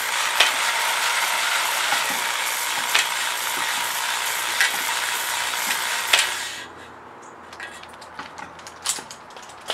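Electric drill spinning a stone cylinder hone in a K24Z7 engine block's sleeved cylinder bore, the brake-fluid-wetted stones scraping the wall with a steady whirring hiss and a few sharp clicks as the hone scuffs a crosshatch into the bore. The drill stops about six and a half seconds in, leaving only light clicks and knocks.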